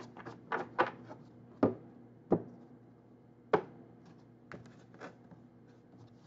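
A tarot deck being shuffled and handled by hand: a quick flurry of card clicks in the first second, then three sharp knocks spread over the next two seconds, and a few softer clicks later.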